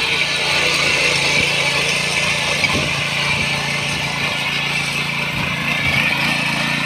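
Midha 7 hp power weeder's small single-cylinder engine running steadily under load as its rotary tines churn through grassy soil.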